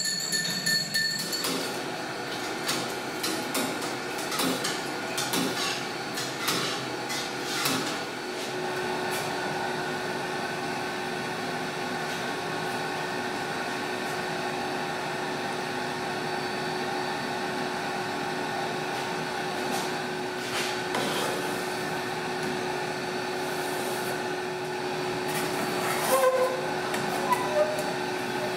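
A metal spoon clinking against a glass beaker, a rapid run of light clicks for the first several seconds. Then a steady machine hum with a held tone runs on, with a few short squeaks near the end.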